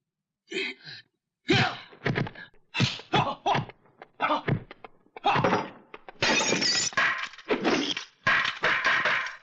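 A rapid series of kung-fu fight sound effects: sharp hits and whacks one after another, with a breaking crash, and a longer, brighter noisy burst about six seconds in.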